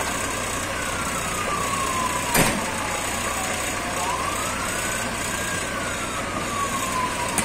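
Emergency siren wailing in one slow glide that falls, rises and falls again, over the steady running of a fire truck's engine. A single sharp knock about two and a half seconds in.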